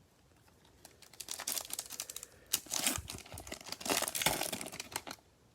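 Plastic wrapper of a Bowman baseball card pack crinkling as it is torn open and pulled apart by hand. It starts about a second in and keeps on in quick, irregular crackles.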